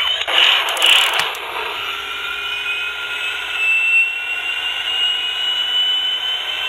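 Jet engine start-up sound effect from the 2010 Hess toy jet, played through its small speaker: a steady rushing noise with a thin whine that slowly rises in pitch.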